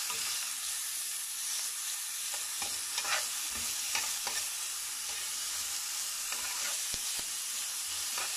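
Chopped onion sizzling steadily in hot oil in a frying pan, with a metal spoon scraping and knocking against the pan now and then as it is stirred.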